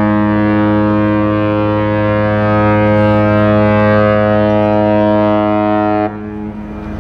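Ship's horn sounding one long, deep, steady blast that cuts off about six seconds in.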